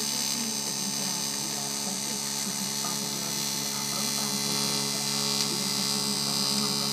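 AC TIG welding arc from a Fronius Magic Wave 2200 on aluminium: a steady electric buzz with a hiss on top, a little louder and brighter from about four seconds in.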